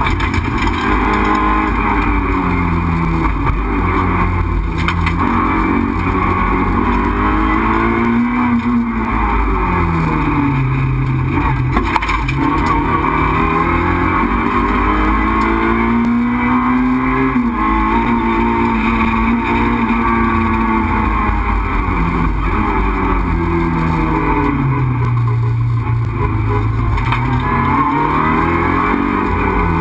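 In-car sound of a Renault Clio 2 RS Group A rally car's four-cylinder engine under hard driving, revving up and dropping back again and again as the car brakes for corners and accelerates out. The engine is loud over a steady rush of road and drivetrain noise.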